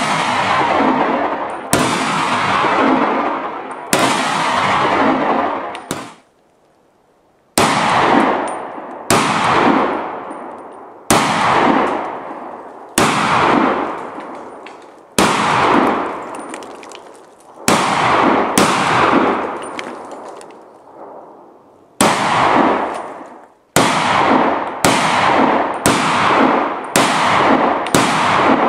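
AMT Automag III pistol in .30 Carbine firing shot after shot. Each sharp report is followed by a long echo that dies away over a second or two. The shots come about one to two seconds apart, with a short pause after the first few and a quicker string near the end.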